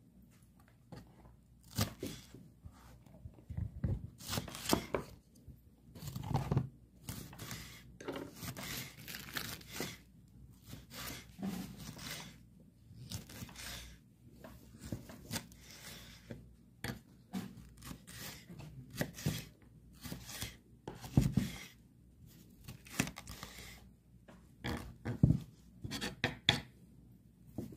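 Kitchen knife slicing raw red and green bell peppers into strips on a wooden cutting board: irregular crisp cuts through the flesh and knocks of the blade on the board, a couple of them louder in the second half.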